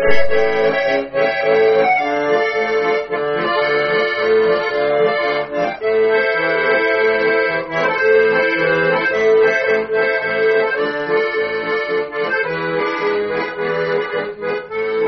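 Bayan (Russian button accordion) playing the instrumental introduction of a song: a melody over an even, rhythmic low accompaniment.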